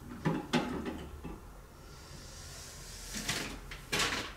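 A few short knocks and clatters of household things being handled: two close together just after the start and a couple more in the last second and a half.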